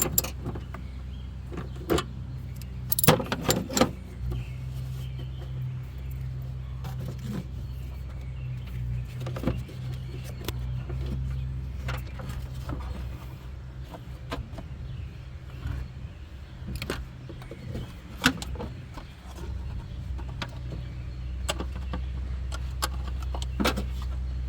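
Scattered clicks and knocks of plastic and metal parts being handled while the air cleaner box goes back on the engine, over a steady low hum.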